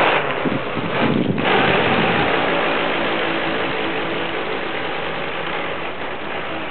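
Radio-controlled speedboat taking off at full throttle. Its motor starts suddenly and runs at high speed on a steady pitch, and the sound slowly fades as the boat speeds away over the water.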